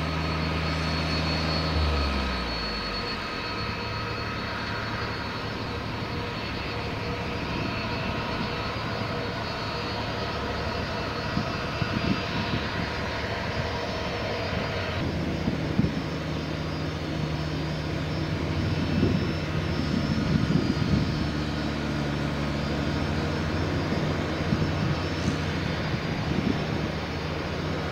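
Jet airliner engines running at high power close by during a takeoff: a steady rush of engine noise with a high, steady whine.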